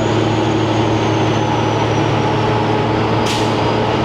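Semi truck's diesel engine pulling steadily through 8-inch straight exhaust pipes, with a thin high turbo whistle that slowly drops in pitch. A brief hiss a little over three seconds in.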